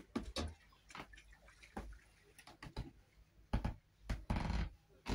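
Irregular light knocks and thumps of footsteps and movement in a small wood-panelled room, with a louder rustling burst about four seconds in.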